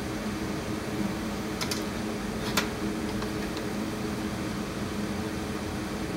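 Steady low mechanical hum, with a few light clicks between about one and a half and three seconds in.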